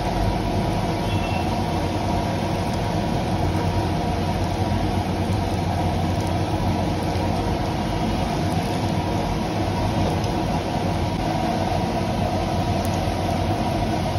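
Spring rolls deep-frying in a wok of hot oil, a steady sizzle over a constant low mechanical hum.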